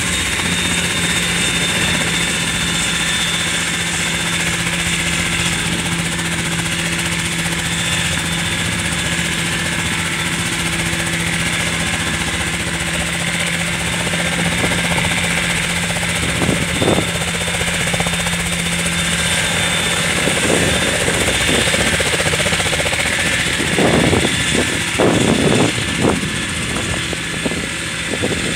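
Radio-controlled model helicopter flying, a steady rotor hum and whine over a rushing hiss, with a few brief low rumbles in the second half.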